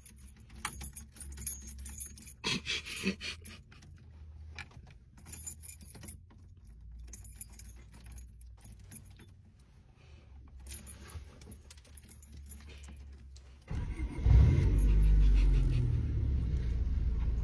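Car keys jangling and clicking in the ignition as they are fumbled and turned. About fourteen seconds in, the car's engine starts with a sudden loud rumble and keeps running, its pitch wavering.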